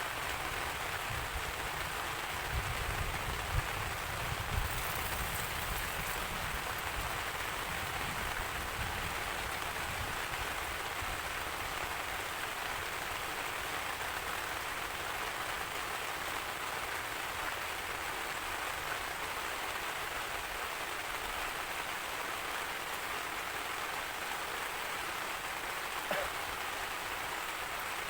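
Steady, heavy rain falling, with a low rumble in the first few seconds and a few sharper drop ticks.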